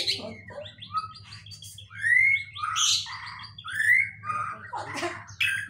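White-rumped shama (Medan murai batu) singing a varied run of clear whistled phrases that arch up and down, mixed with sharp chirps and a few rasping notes. This is the shama's trained song, filled with mimicked kapas tembak calls.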